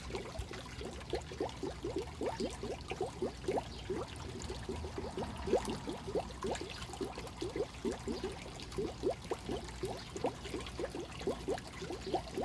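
Water trickling and splashing into water, a steady run of small bubbly plops, several a second.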